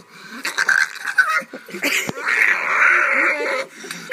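Puppy squealing loudly in protest at having its nails clipped: short harsh squeals, then one long scream starting about two seconds in.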